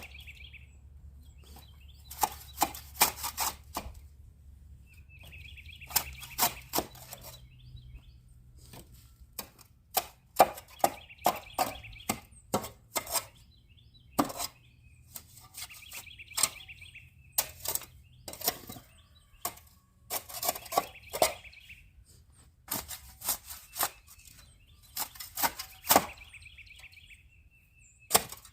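Repeated sharp knocks and clacks in short clusters every couple of seconds, with brief high chirps coming in between.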